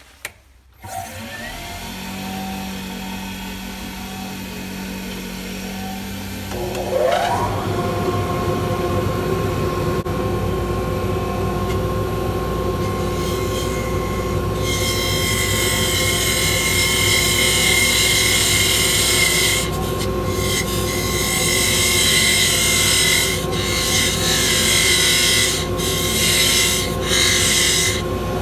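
Mini wood lathe starting up about a second in and running with a steady hum, rising in pitch as it speeds up about seven seconds in. From about halfway, a 1/8-inch parting tool cuts into the spinning spalted maple blank with a steady hiss, breaking off briefly a few times near the end.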